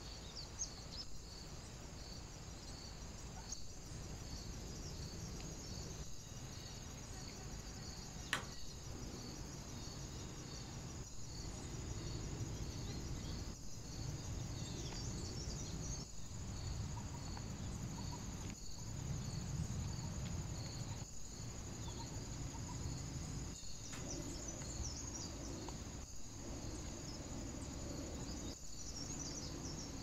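Woodland ambience from a trail camera's microphone, sped up to double speed: a steady hiss under a regular high insect-like chirp, with faint bird calls now and then and brief dropouts every couple of seconds. A single sharp click comes about eight seconds in.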